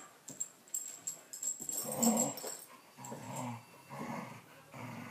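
Two dogs play-fighting, with throaty growls and huffing breaths. The loudest one comes about two seconds in, then short growls of about half a second each repeat several times.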